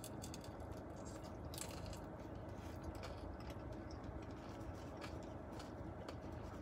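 Faint close-up chewing and biting of crisp food, with small scattered crunches, over a steady low hum.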